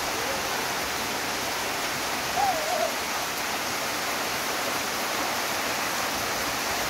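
Steady hiss of heavy rain falling on the ground and vegetation. About two and a half seconds in, a brief wavering voice rises and falls over it.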